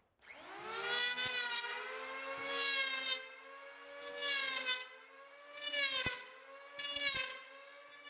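Electric hand planer spinning up with a rising whine, then running steadily, its sound swelling about six times as it takes passes across a plywood rudder blank to taper it toward the aft edge.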